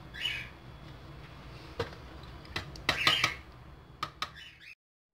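A few light clicks and knocks, with two short rustles, as small paint pots and brushes are handled and set down on a table. A low steady hum lies underneath, and the sound cuts out briefly near the end.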